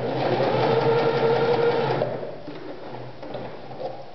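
Privileg Super Nutzstich 1511-1 household sewing machine running at speed, stitching through cotton fabric, then slowing and stopping about two seconds in. A few light clicks follow.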